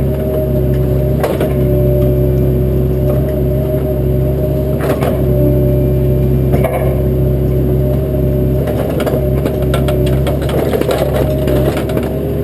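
Bobcat 337 compact excavator's diesel engine running steadily under work, with sharp cracks of branches snapping, and a burst of crackling and crushing brush from about nine to eleven seconds in.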